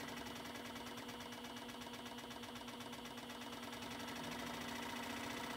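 Jet JWSS-22B scroll saw running free with no workpiece, the blade stroking up and down at speed: a quiet, steady hum with a fast, even pulsing from the strokes and virtually no vibration.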